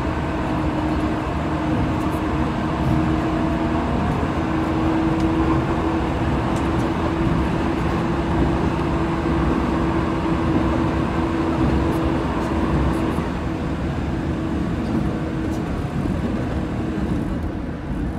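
Running noise inside the cabin of a JR 185 series train: a steady rumble of wheels and motors with a constant hum, heard in a tunnel, the level easing slightly near the end as the train comes out into the open.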